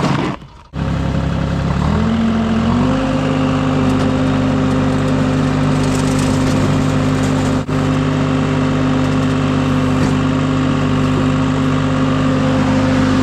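An engine starts running abruptly under a second in, then its speed rises over about a second to a steady higher running speed and holds there.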